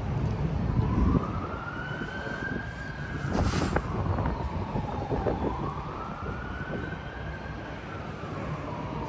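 Emergency-vehicle siren in a slow wail, its pitch rising and falling twice, over a rumble of traffic. A brief sharp noise cuts across it about three and a half seconds in.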